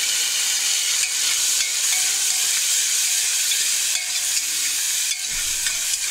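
Chopped tomato, onion, ginger and garlic sizzling in hot oil in a pressure cooker as a steel spoon stirs them: a steady frying hiss with a few light spoon knocks against the pot.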